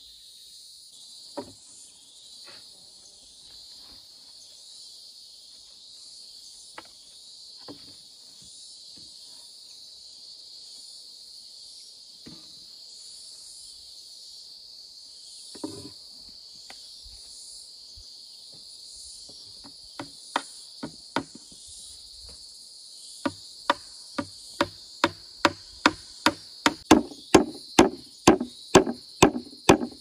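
A steady high chorus of insects runs throughout, with a few scattered wooden knocks. Near the end comes a fast run of hammer blows, about two to three a second and growing louder, as a plank nest box is nailed together.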